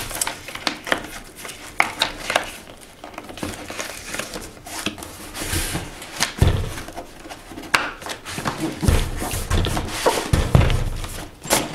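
Handling of packaging: a white cardboard sleeve rustling and scraping as it slides over a grey foam case, with many small clicks and taps. A few dull thumps in the second half as the box is turned and set against the table.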